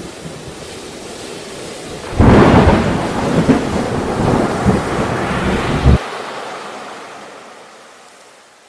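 Steady rain hiss, then about two seconds in a loud thunderclap cracks and rumbles for about four seconds. The low rumble cuts off abruptly, and the rain hiss fades out near the end.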